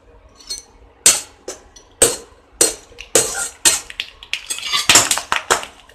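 Sun-dried ivy gourd slices (kovakkai vathal) deep-frying in hot oil in a steel pan. From about a second in they sizzle and crackle in irregular bursts, about two a second, while a steel ladle stirs and scrapes against the pan as they puff up.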